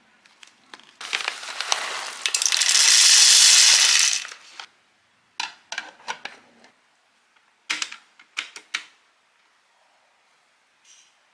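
Whole coffee beans poured into a burr grinder's clear plastic hopper: a loud rattling shower for about three and a half seconds. Then two short runs of clicks and knocks as the plastic lid is fitted and the hopper is turned on its grind-setting detents.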